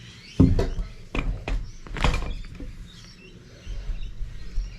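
A tool banged into a gutted catalytic converter to knock out its crumbling catalyst honeycomb: a sharp loud knock about half a second in, then several more knocks over the next two seconds.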